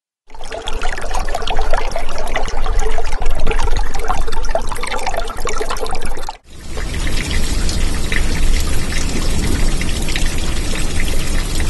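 Running, trickling water full of small crackles and clicks, starting abruptly out of silence. About six seconds in it cuts sharply to a fuller, steadier rush of water with a deeper rumble underneath.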